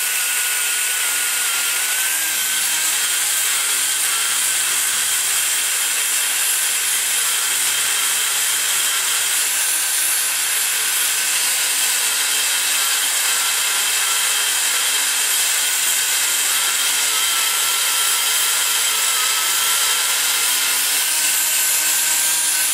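A die grinder with a long-shank bit grinding the roof of a cast-iron small-block Chevy intake port under heavy pressure, removing metal to raise the roof. It makes a steady high whine whose pitch wavers slightly as the bit is loaded.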